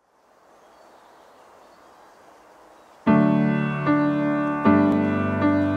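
A faint hiss, then slow piano chords entering about three seconds in, each struck and left to ring and fade, restruck roughly every three-quarters of a second.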